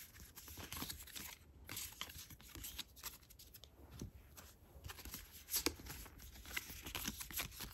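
Faint rustling and light irregular clicks of a stack of photocards being sorted through by hand and set down on a carpet.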